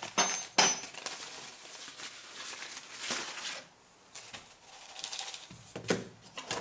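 Small pieces of crushed activated charcoal clicking and rattling in a sieve as they are handled, with rustling and a few sharp clicks.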